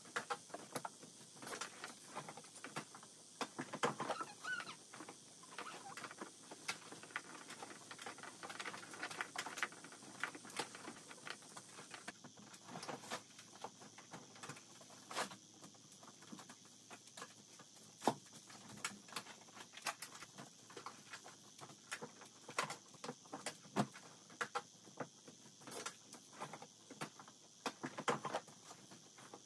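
Clothes rustling as they are picked up, shaken out and folded by hand, with irregular soft taps and knocks.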